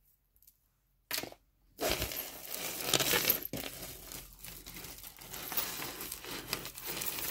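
Costume jewelry clinking and rattling as a tangled pile of necklaces and chains is rummaged through and pulled apart by hand, after a short rattle about a second in.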